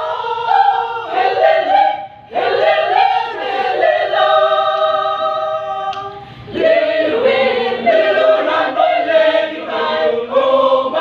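Choir singing a vocal warm-up exercise a cappella, in three phrases with short breaks about two seconds and six seconds in; the middle phrase ends on a long held chord.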